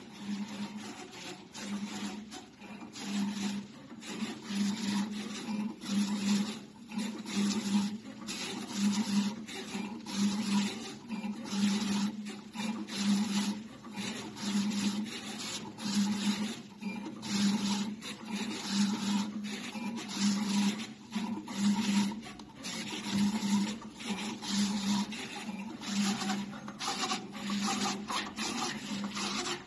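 Automatic digital label cutter kiss-cutting round labels: the cutting carriage motor hums in short repeated pulses, a little more than once a second, over a run of ticking and scraping from the blade and feed rollers.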